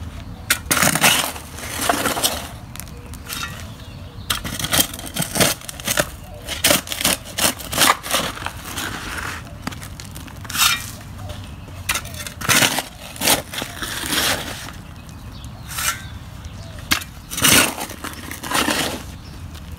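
Steel pointed shovel driven into damp, hard-packed rocky soil and levered out, its blade chopping, scraping and grating against stones. Irregular strikes come about one or two a second, some with a longer scrape.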